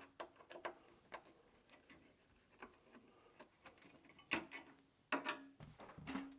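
Light clicks and knocks of hardware being handled inside a PC case, with a few louder clunks near the end.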